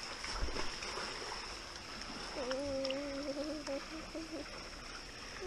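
Swimming-pool water lapping and sloshing right at an action camera held at the surface, with a faint steady high whine throughout. About two seconds in, a held, level, voice-like hum sounds for about two seconds.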